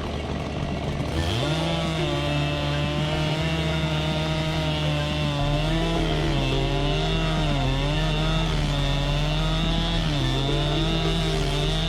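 Chainsaw revving up about a second in and held at high speed, its pitch sagging briefly a few times as it cuts into the wood.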